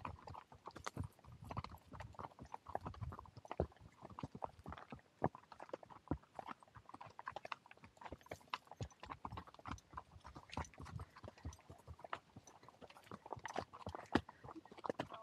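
Horse hooves clip-clopping along the trail: a steady, irregular run of sharp hoof strikes, several a second.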